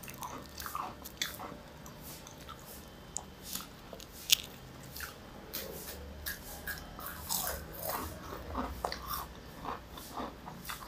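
Crispy batter-fried moringa (malunggay) leaf fritters being bitten and chewed, with irregular crunches and crackles. One sharp, louder crack comes about four seconds in.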